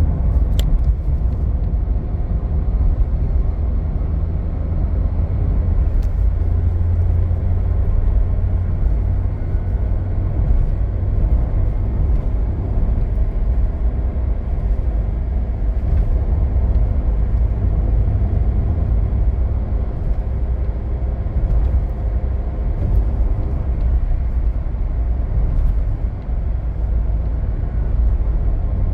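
Toyota Avanza running on the road: a steady, low engine and road rumble with no clear rise or fall in pitch.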